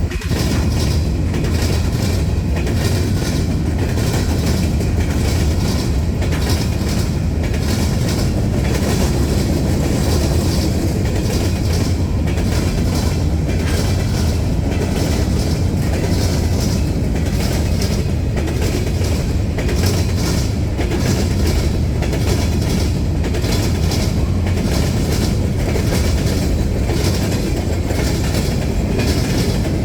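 Freight cars of a CSX trash train rolling past close by, a continuous heavy rumble with repeated clacks of the wheels over the rail.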